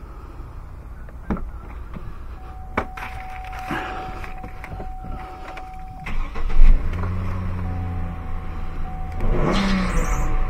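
A dashboard warning chime tone, then the 2008 Chevrolet Trailblazer's engine cranks and starts about six seconds in and settles into a steady idle, with a rise in revs near the end. The engine is running on a freshly replaced electronic throttle body, fitted to cure a P0121 throttle position/reduced engine power fault.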